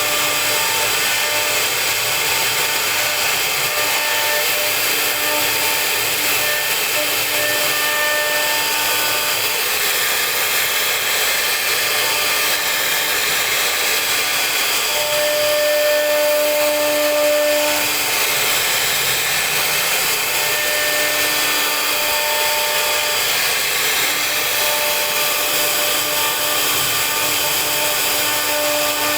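CNC router spindle running steadily as it carves wood, with a whining tone that comes and goes every second or two as the cutting head moves.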